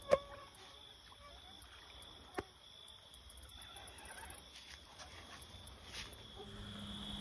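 Crickets chirping steadily at night, with a sharp click just after the start and a smaller one about two seconds later; a low hum comes in near the end.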